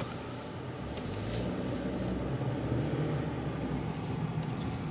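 A Hyundai car's engine and tyre noise, heard from inside the cabin as it accelerates. The steady low hum swells gradually and then eases off slightly near the end.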